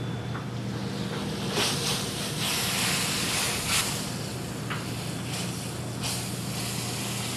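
Steady kitchen background hum and hiss, with a few light clicks and taps of plating at the stove.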